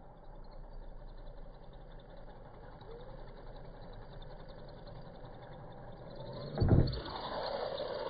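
Hyper Go RC monster trucks running on asphalt, their electric motors whining, louder in the last second or so as a truck comes close. A single heavy thump comes about two-thirds of the way through.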